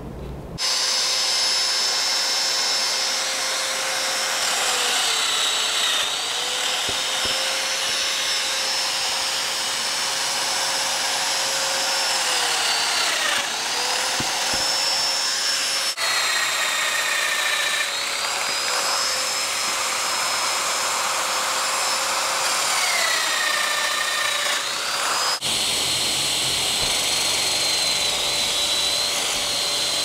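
Festool plunge-cutting power tools, a Domino DF 500 joiner and a router with a 5 mm bit, running while cutting into plywood. The motor gives a steady high whine whose pitch sags several times as the cutter bites into the wood, then recovers. The sound jumps abruptly twice, near the middle and about two-thirds through.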